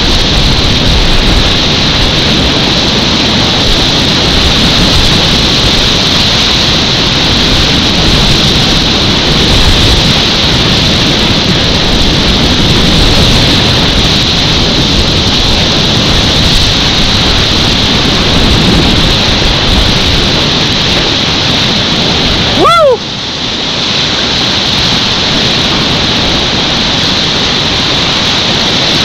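Class 4 whitewater on West Rosebud Creek at about 500 cfs rushing loudly and steadily around a kayak, with water and wind buffeting the microphone. About 23 seconds in, one short whoop rises and falls in pitch, and the water noise then dips briefly.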